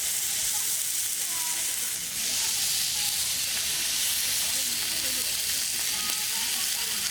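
Food sizzling as it fries in a hot pan, a steady hiss.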